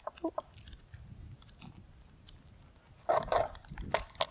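A mini pizza's crust being cut on a wooden cutting board with a utensil and a pizza-cutter wheel. There are scattered scrapes and clicks, a denser stretch of cutting about three seconds in, and two sharp clicks near the end.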